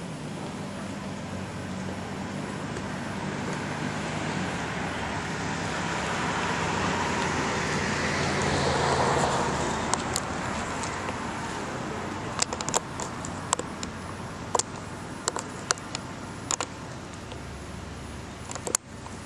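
A car driving past on the street: engine and tyre noise rise to a peak about halfway through, then fade away. This is followed by a series of sharp clicks, several seconds apart.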